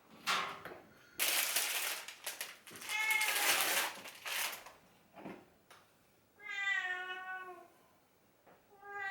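Domestic cat meowing. Two long meows in the second half, each dipping slightly in pitch, follow a shorter call heard through scratchy rustling earlier on.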